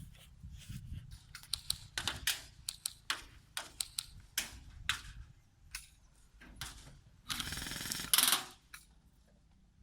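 Airsoft guns firing: scattered sharp single shots and quick strings of shots, then a rapid burst of about a second near the end.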